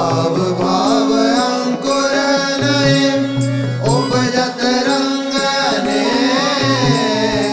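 Instrumental interlude of Indian devotional music: a wavering, gliding melody over a steady drone, with regular hand-drum and small-cymbal strokes.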